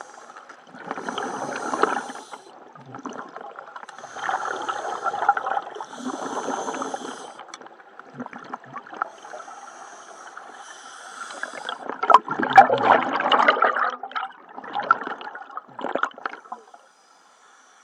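Scuba diver breathing underwater through a regulator: a hissing inhale, then a rush of exhaled bubbles, repeating every couple of seconds. The loudest rush of bubbles comes about twelve seconds in.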